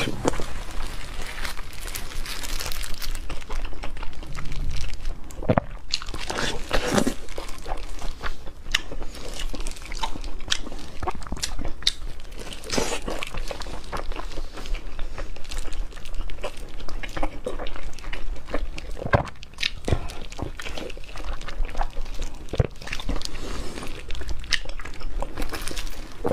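Close-up chewing and mouth sounds of someone eating soft, fatty braised pork belly, with many short, sharp smacking clicks throughout.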